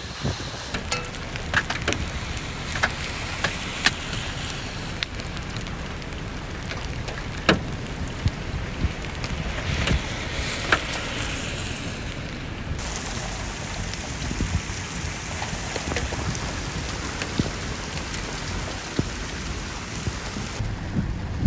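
Heavy rain pouring down steadily, with scattered sharp knocks of drops or hailstones striking, most of them in the first half.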